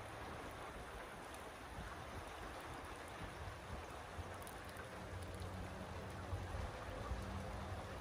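Steady rain falling, an even hiss of drops on surfaces.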